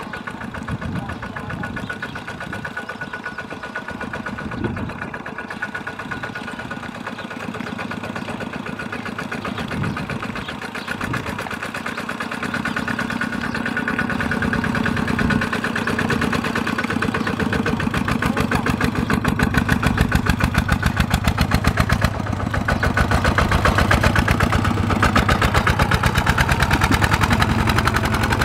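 Single-cylinder diesel engine of a two-wheel walking tractor running steadily under load, pulling a loaded trailer through deep paddy mud. Its even firing beat grows louder over the second half.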